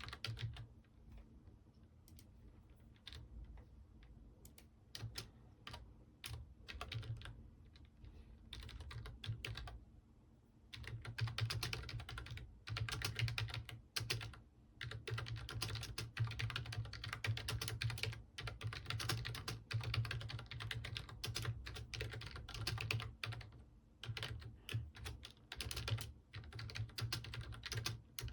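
Computer keyboard typing: a few scattered key clicks for roughly the first ten seconds, then steady fast typing in long runs with short pauses.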